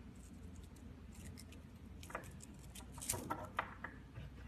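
Faint handling sounds of a fluted corrugating-medium paper strip being fitted into a CMT comb rack: scattered light ticks and scrapes, with a small cluster of clicks about three seconds in.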